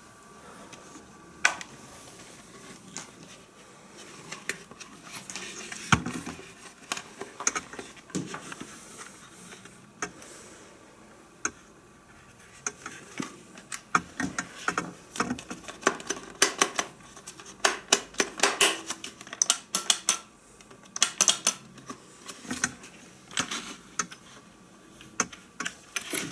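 Clicks and knocks from hands handling the plastic base of a Braun JB 3060 stand blender. They come sparsely at first and in quick clusters through the middle and later part, and the motor is not running.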